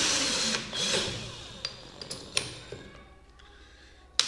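Keyless chuck of a 20V cordless drill being opened and tightened by hand around a twist drill bit. It gives about a second of loud rattling, a few light clicks, then one sharp click near the end as the chuck grips the bit.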